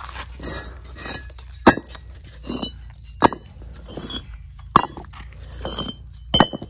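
Fired clay bricks clinking against one another as they are handled and stacked: four sharp clinks about a second and a half apart, with softer scrapes between them.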